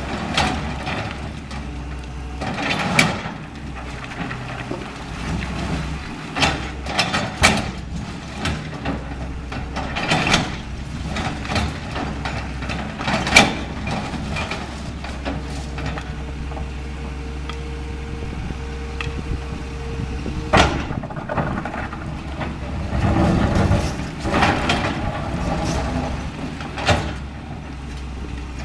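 A Caterpillar 325L hydraulic excavator's diesel engine running steadily under load while it breaks up a building, with repeated cracks, knocks and crashes of breaking concrete and falling debris. A steady whine holds for about five seconds in the middle and ends in a sharp crash.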